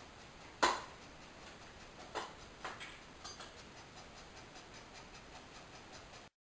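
A few short, sharp clicks over a low room hiss, the loudest about half a second in and smaller ones around two and three seconds in.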